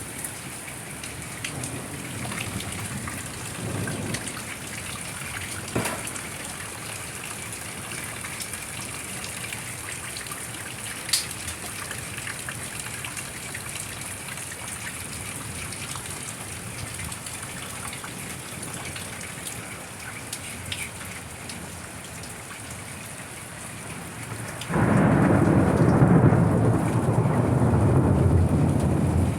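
Steady rain falling, with scattered sharp drop ticks. Near the end a sudden, much louder low rumbling noise starts and keeps going.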